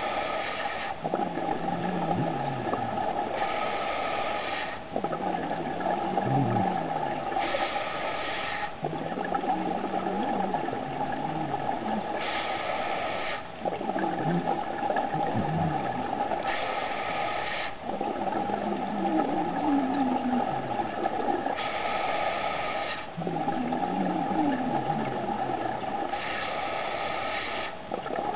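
Scuba diver breathing underwater through a regulator: a short inhale about every four seconds, each followed by a longer, bubbling exhale.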